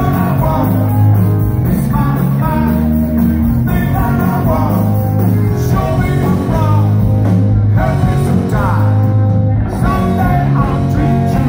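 A live rock band playing loud, with electric bass, electric guitars, keyboard, saxophone and trumpet, and a heavy bass line underneath, as heard from among the audience.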